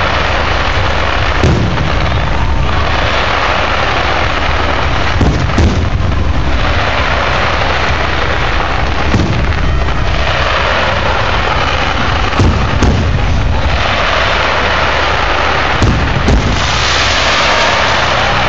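Fireworks display: sharp bangs of bursting shells, about eight of them at irregular intervals, over a constant loud rush of noise.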